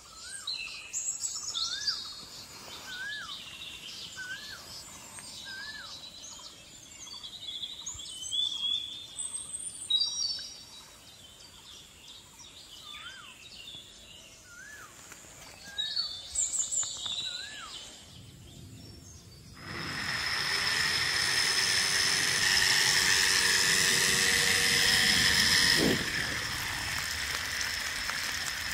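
Birds chirping and calling, with one rising-and-falling call repeated about once a second. About two-thirds of the way in, a homemade water pump driven by a 775 DC motor starts, running with a steady whine over a rushing spray of water; near the end it gets a little quieter.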